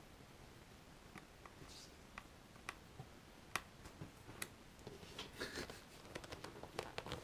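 Faint, scattered light clicks and taps from hands and a screwdriver working on an open laptop's screws and plastic parts. They come sparsely at first and grow busier over the last couple of seconds.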